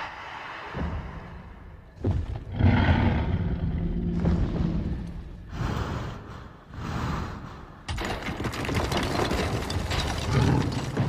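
Film sound effects of a Tyrannosaurus rex: several deep roars and growls, with a longer, harsher roar starting about eight seconds in.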